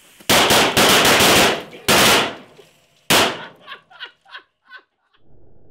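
Mince pies each charged with about 0.2 g of flash powder exploding in quick succession: a rapid volley of sharp bangs in the first second, then single bangs about two and three seconds in, trailing off into a few fainter short sounds.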